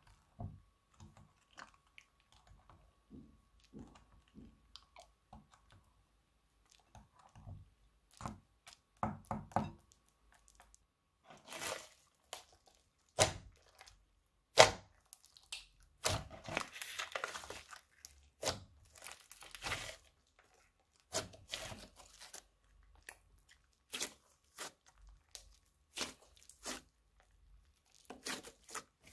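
Clear slime being mixed with a spatula in a glass bowl, then kneaded, pressed and stretched by hand. It gives soft sticky clicks at first, then louder crackling and popping from about ten seconds in.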